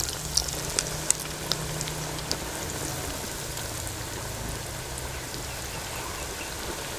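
Breadcrumb-coated potato-and-egg kababs deep-frying in hot oil: a steady sizzle, with sharp pops and spits in the first couple of seconds.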